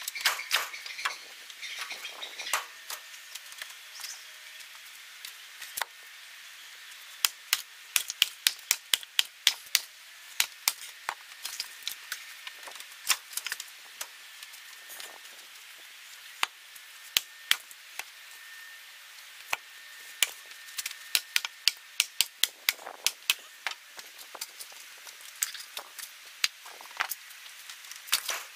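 Split firewood clacking against other pieces as it is stacked onto a woodpile: many sharp wooden knocks, often in quick runs of several a second with short pauses between.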